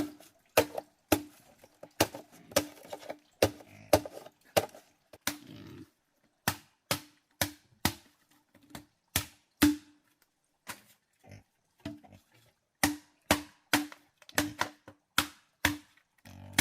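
Knife chopping on a wooden board: sharp, separate strikes about two a second, each with a short dull ring. The strikes pause briefly about five seconds in and thin out for a couple of seconds around the middle.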